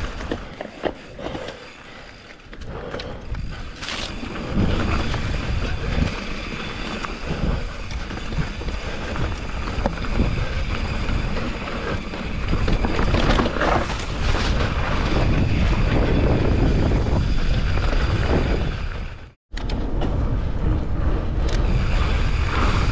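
Mountain bike riding over a dry dirt and rock trail: wind buffets the camera's microphone over tyre noise, with scattered knocks and clacks from the bike over bumps. The sound cuts out for an instant near the end.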